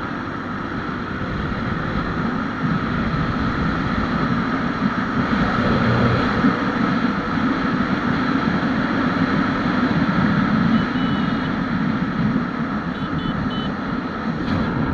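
A Honda Wave 125X's single-cylinder four-stroke engine and exhaust running while the bike is ridden, with wind noise. It gets louder over the first few seconds as the bike picks up speed, then holds steady.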